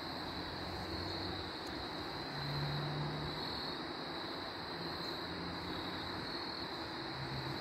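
Woodland ambience: insects droning steadily at a high pitch over a background hiss, with a faint low engine hum from far off that comes and goes.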